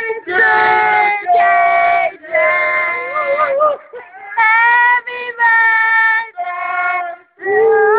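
A young child's voice making a run of long, high held notes, one after another with short breaks between them.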